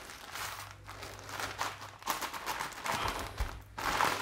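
Plastic and paper parcel wrapping crinkling and rustling in irregular bursts as the package is handled and its outer wrapping is pulled open.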